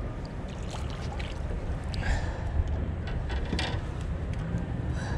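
Ambience on a small fishing boat on the river: a steady low rumble of wind, with water sloshing and a couple of short noises about two and three and a half seconds in.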